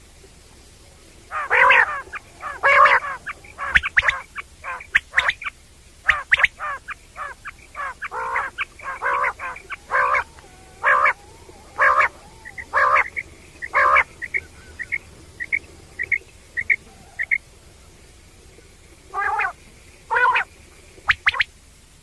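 Common quail calling: a dense run of short, repeated calls, then a series of fainter evenly spaced pips at about two a second, and after a short pause a few more calls near the end.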